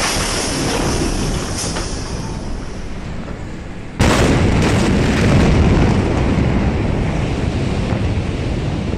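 Large explosion: a steady rumbling noise, then a sudden much louder blast about four seconds in that keeps rumbling.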